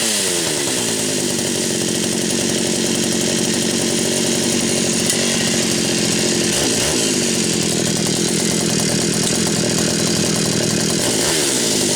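Pioneer P39 two-stroke chainsaw (a 66 cc saw) settling from a rev into a steady idle, with a short throttle blip about seven seconds in and revving up again near the end.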